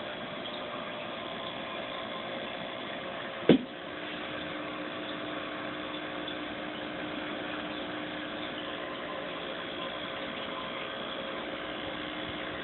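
Steady mechanical hum holding a few fixed tones, with one short loud knock about three and a half seconds in.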